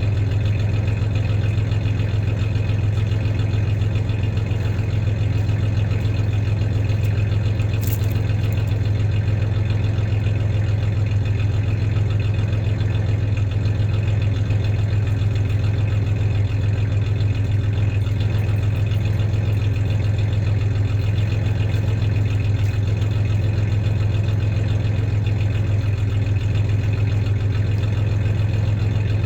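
1993 Ford Ranger's 3.0-litre V6 idling steadily with a slight misfire. A single brief click comes about eight seconds in.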